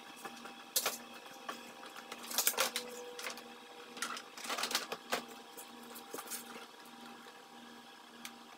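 Handling noises of work on a car's plastic front bumper and masking tape: scattered clicks, knocks and short rustles, the busiest stretch about two and a half seconds in and again around four to five seconds. Under them runs a faint low hum that pulses at an even pace.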